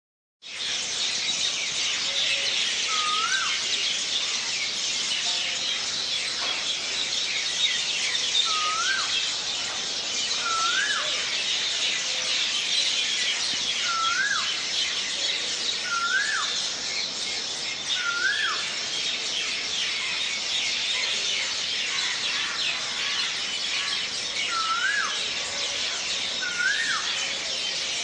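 Dawn chorus of many birds chirping densely and continuously. One bird repeats a short call that rises and then drops, eight times at intervals of about two seconds.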